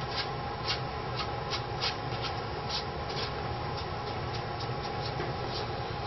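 Bristle brush working oil paint into a canvas in short scratchy strokes, about two or three a second and irregular, over a steady low hum.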